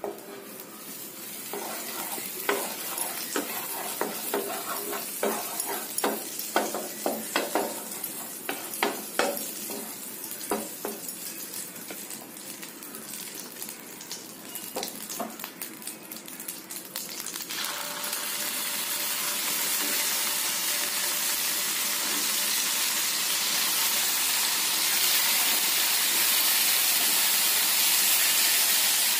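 Butter melting in hot oil in a nonstick frying pan, sizzling with scattered crackles and pops. About 17 seconds in it jumps to a louder, steady sizzle as curd-and-cream-marinated paneer cubes go into the hot fat to fry.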